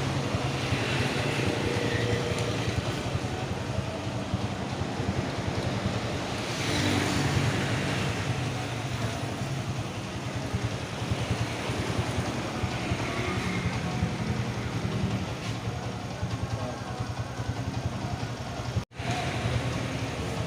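Honda GL Max single-cylinder four-stroke motorcycle engine running steadily at idle, with an even rapid pulsing. The sound cuts out for an instant near the end.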